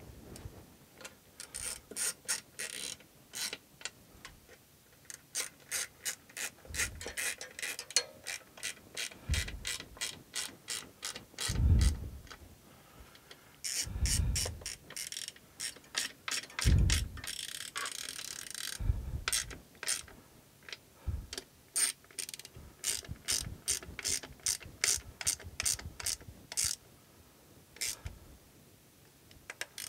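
Hand ratchet and socket clicking in quick runs as bolts are tightened down, with a few dull knocks in between.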